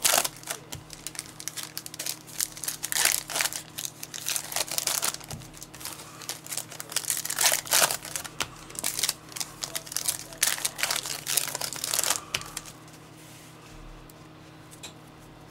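Plastic wrapping of trading card packaging crinkling and tearing as it is pulled open, in quick irregular crackles that stop about three-quarters of the way through.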